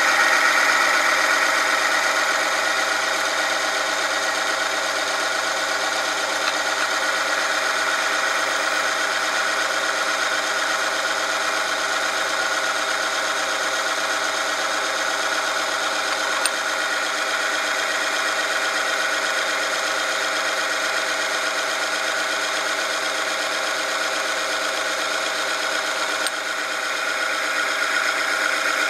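Oil film strength test machine running under load: its electric motor spins a steel ring against a test sample in motor oil, a steady mechanical grinding and whine. A couple of faint clicks partway through.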